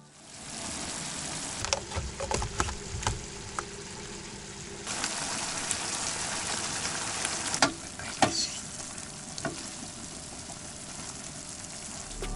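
Food frying: a steady sizzling hiss with scattered crackles and pops. The sizzle grows louder about five seconds in.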